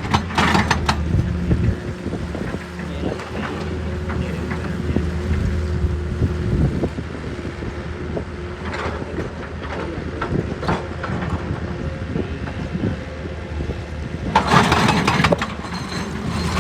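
Excavator's diesel engine running steadily, with short bursts of clattering and scraping a few times, loudest near the end.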